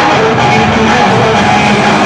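Loud Hindi film dance music playing without a break.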